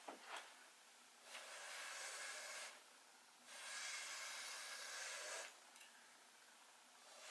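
Blow dryer blowing air over wet acrylic paint in two short hissing bursts, about a second and a half and two seconds long, pushing the paint across the canvas. A light click comes just before.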